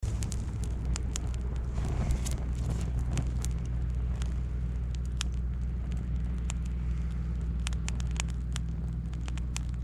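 Wood campfire crackling with many sharp, irregular pops over a steady low hum.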